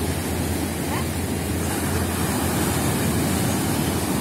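Sea surf breaking and washing up the shore: a steady, loud rushing noise with no single crash standing out.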